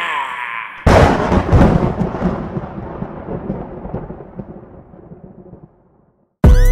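A sudden deep boom sound effect about a second in, rumbling away slowly over about five seconds to silence. Electronic music with a heavy beat starts just before the end.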